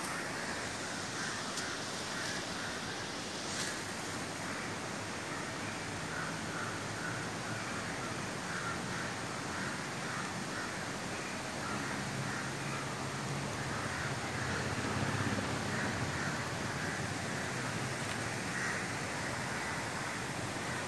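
Open-air ambience: a steady hiss with birds calling in short, repeated calls throughout, crow-like caws among them. A low hum swells in the middle and fades again.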